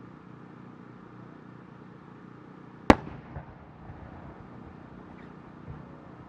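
An aerial firework shell bursting with one sharp, loud bang about three seconds in, followed by a few much fainter reports. The shell opens as a round green chrysanthemum-type burst.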